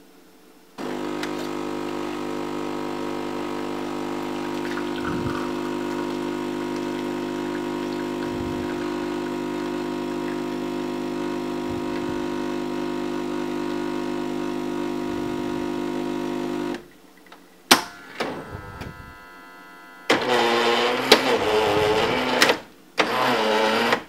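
Espresso machine pump buzzing steadily while a shot is pulled, then cutting off abruptly, followed by a sharp click. Near the end come two louder bursts of a different, wavering mechanical noise.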